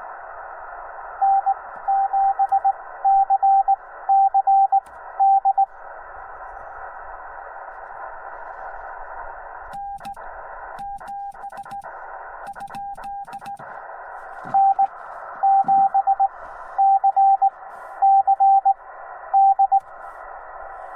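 Morse code (CW) from the Yaesu FT-891 ham radio: a single steady beep keyed in dots and dashes over a hiss of band noise. Loud keyed runs come near the start and again in the second half. About ten seconds in there is a fainter keyed stretch, with sharp clicks, and the hiss cuts out between the elements.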